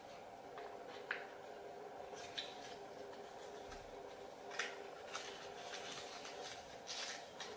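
Sheet of origami paper crinkling and rustling as it is folded and creased by hand: faint, irregular crackles and soft clicks, a sharper crackle about a second in and another a little past halfway. A steady low hum runs underneath.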